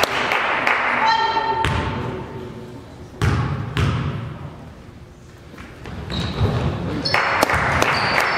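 A basketball bouncing on a hardwood gym floor, with two sharp thumps a couple of seconds in, over crowd chatter echoing in a large gym. About a second in there is a brief horn-like tone. Near the end, sneaker squeaks and crowd noise pick up as play resumes.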